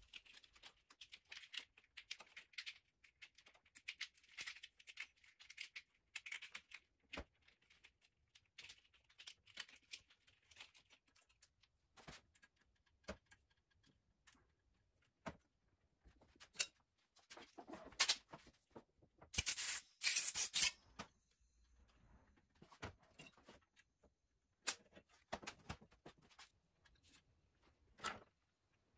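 Hands working on an electric scooter's handlebar and throttle: a run of light clicks and rustles of cables and plastic parts. A louder tearing rasp comes about twenty seconds in, and a few sharp knocks near the end as parts are set down on the metal workbench.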